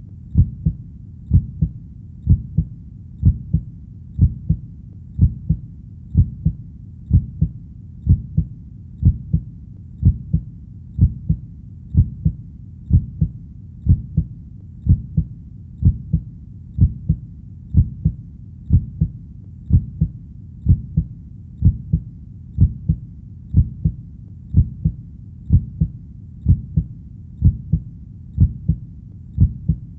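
Heartbeat: a steady, low lub-dub double thump about once a second, keeping an even pace throughout.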